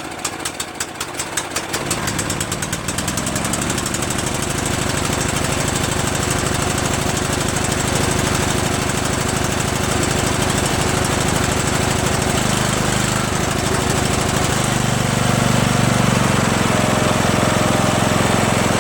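Yard Machines lawn tractor's Tecumseh 13.5 hp engine starting on choke: it sputters unevenly at first, catches about two seconds in and then runs steadily, getting louder near the end.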